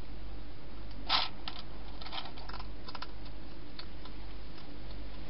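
European hedgehog eating from a bowl inside a plastic feeding box: a run of short crunchy clicks, loudest about a second in and thinning out towards the end, over a steady low hum.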